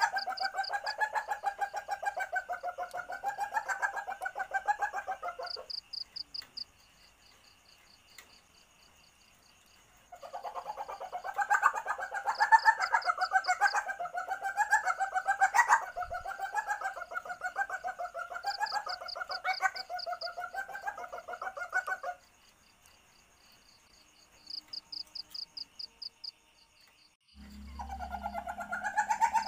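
Common palm civet calling, the call of a female in heat according to the recording: long bouts of rapid, pulsing chatter with a wavering pitch. One bout runs about five seconds, a longer one about twelve seconds, and a third starts near the end, with short pauses between them.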